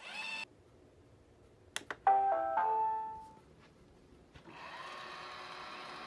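iRobot Roomba e6 robot vacuum: the tail of a short electronic chime, then two clicks and a brief electronic tune of several notes, signalling its return-to-dock command. About four and a half seconds in, its motors start and run steadily with a whine.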